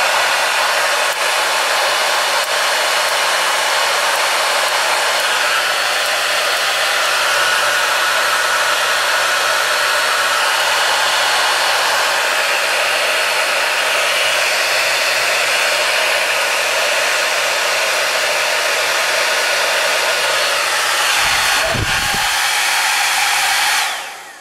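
Hand-held hair dryer running steadily on hot air, warming a Brother KH801 knitting-machine carriage that will not knit properly. A brief low knock comes near the end, and the dryer cuts off just before the end.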